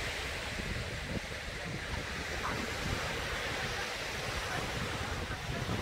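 Surf washing onto a sandy beach, a steady hiss of small breaking waves, with wind rumbling on the microphone.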